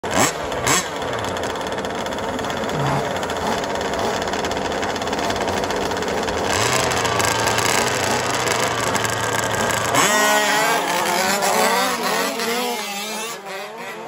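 Radio-controlled 4WD short course trucks racing on a dirt track, their motors and tyres making a steady, dense racing noise. About ten seconds in it gives way to motor pitch rising and falling as the trucks go through the corners. Two sharp clicks sound near the start.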